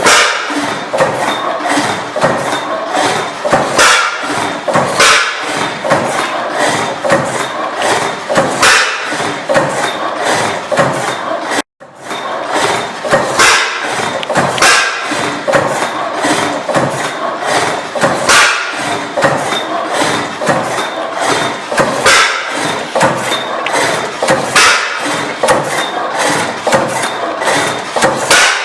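Antique Benz & Co. stationary engine running, a continuous clatter of repeated knocks and thumps. The sound cuts out for a moment about twelve seconds in.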